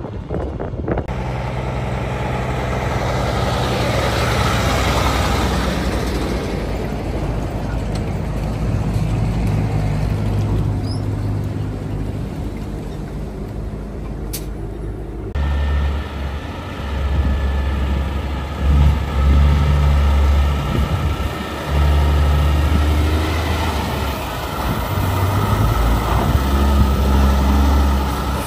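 Heavy diesel road trains driving past: a steady low engine drone with tyre noise. About halfway a prime mover close by takes over, its engine note rising and dropping in surges as it pulls away under load.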